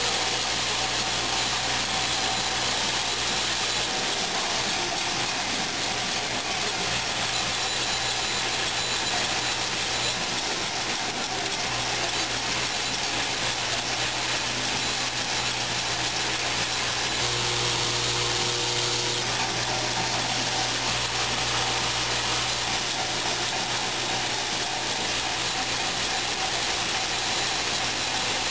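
Washer and screw assembly machine running: the vibratory bowl feeder gives a steady low hum under a continuous metallic rattle of screws moving along the feed tracks and drum.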